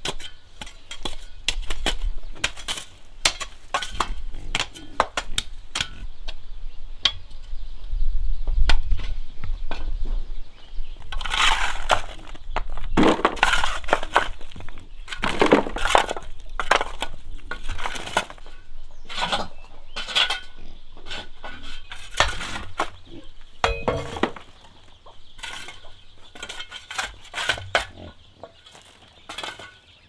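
A busy run of sharp clicks, knocks and snaps, with louder scraping and rustling bursts around the middle, like hands-on handling or breaking work.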